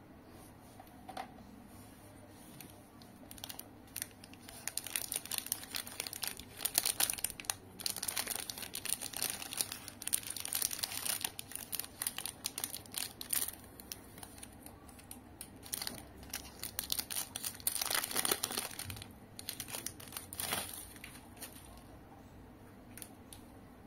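Plastic wrapper of a Nestlé Munch Max chocolate bar being torn open and crinkled by hand: a dense run of crackles from about four seconds in until near the end, with two louder crackles shortly before it stops.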